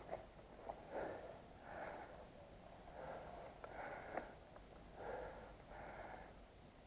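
A person breathing hard and rhythmically close to the microphone, a breath in or out about every second, with a few faint clicks between.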